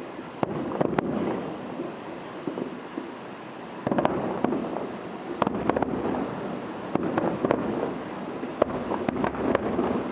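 Aerial fireworks display: about ten shell bursts bang at irregular intervals, some in quick pairs, over a steady rumble of echoing explosions.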